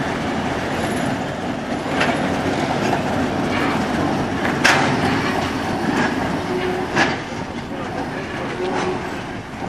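2M62 diesel locomotive sections rolling slowly past with their two-stroke diesel engines running, and the wheels clacking over rail joints about every two and a half seconds. The loudest clack comes about halfway through.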